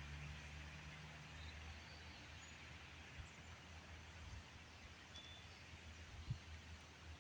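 Quiet forest ambience: a steady low rumble with faint outdoor hiss, a few brief faint high bird chirps, and a single soft knock about six seconds in.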